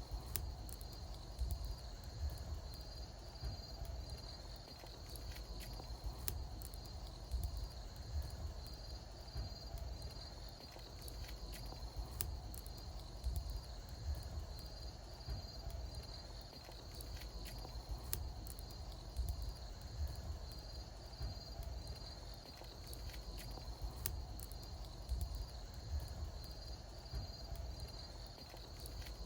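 Wood bonfire crackling with scattered sharp pops over a low rumble of flames, while insects chirp steadily in a high, pulsing trill.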